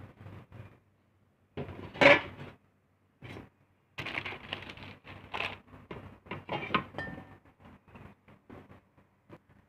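Metal kitchen bowls and pots clattering and clinking as they are picked up and set down. There is a loud clank about two seconds in and a busy run of clinks in the middle, then lighter taps.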